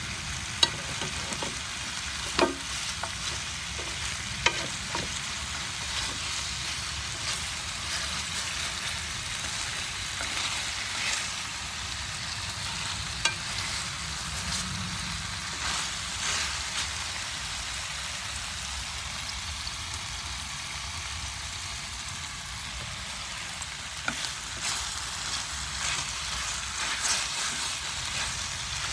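Chicken drumsticks frying in oil in a non-stick skillet, sizzling steadily with fine crackles. A few sharp clicks come through, mostly in the first few seconds, as wooden chopsticks turn the pieces against the pan.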